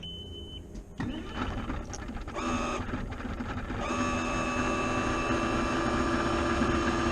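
A machine running with a steady multi-pitched whine, growing louder about a second in and again about four seconds in.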